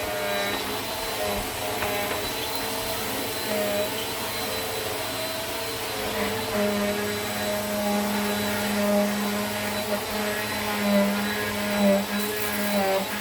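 Eureka Airspeed Plus (NEU110) upright vacuum cleaner running while vacuuming carpet: a steady motor hum whose pitch wavers slightly, with a few swells in level in the second half as it is pushed back and forth.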